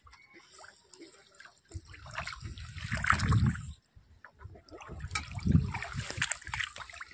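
Water splashing and sloshing in two bouts, the first about two seconds in and the second around five seconds in.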